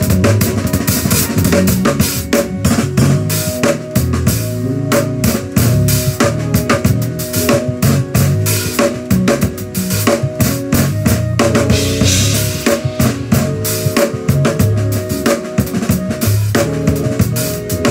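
Drum kit played in a fast, dense groove of kick, snare and cymbal hits over accompanying music with held notes. A cymbal wash swells about twelve seconds in.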